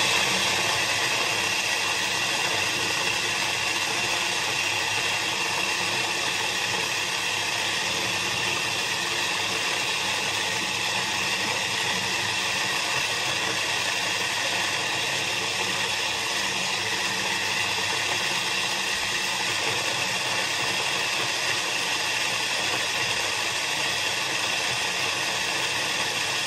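Electric kitchen blender running steadily under load, blending frozen strawberries with heavy cream into soft ice cream.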